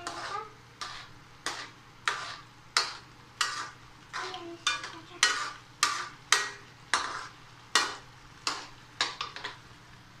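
Pili nuts being stirred in a pot of sugar and water, the utensil scraping through them in short repeated strokes, about three every two seconds, as the syrup cooks down.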